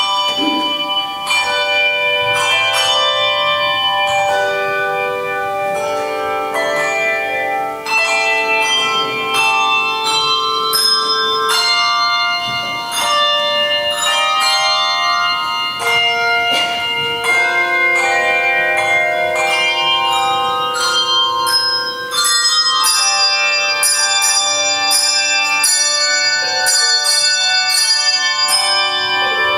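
Handbell choir playing: many tuned bells struck in overlapping chords and melody lines, each note ringing on and dying away slowly. The playing begins right at the start.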